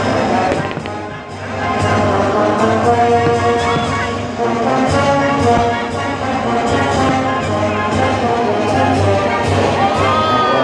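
Orchestral music with prominent brass playing.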